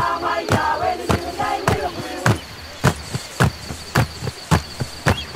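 Soundtrack music: a steady percussion beat of about two strikes a second, with group voices chanting over it in the first two seconds, then the beat alone with a steady high tone behind it.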